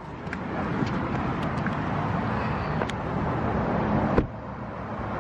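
Steady outdoor traffic noise, with a few faint clicks and a single knock about four seconds in.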